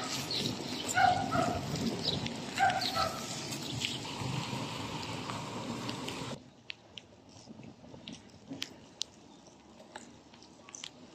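A dog barking a few times in the first three seconds, over a steady hiss of outdoor noise. About six seconds in the sound drops suddenly to a quieter background with scattered faint clicks.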